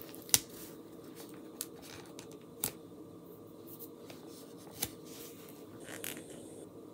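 Fingernails picking and scraping at an adhesive silkscreen transfer: four or five light clicks and ticks over a faint room hum, the sharpest just after the start.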